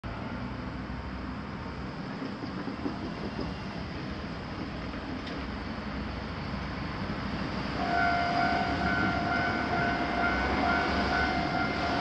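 Road traffic rumbling through a railway level crossing. About two-thirds of the way in, the crossing's electronic warning bell starts up and rings on in a steady repeating ding, warning of an approaching train.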